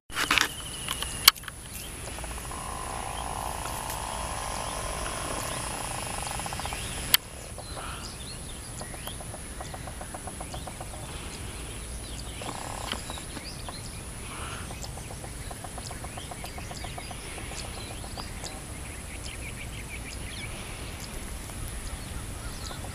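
Outdoor ambience with birds chirping over the faint, steady rumble of a distant electric multiple unit local train running past. A rapid even ticking comes and goes, and there is a sharp click about seven seconds in.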